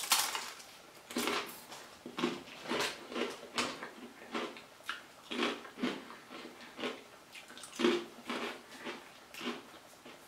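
Ridged potato crisps being bitten and chewed: one sharp crunch at the first bite, then steady crunching chews, a little over two a second.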